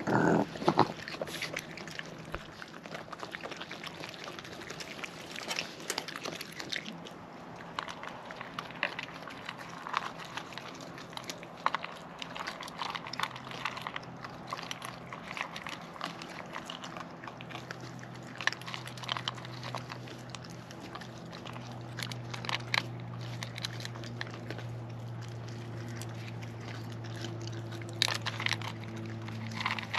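A raccoon chewing, with irregular crunching and crackling clicks, over a faint steady low hum.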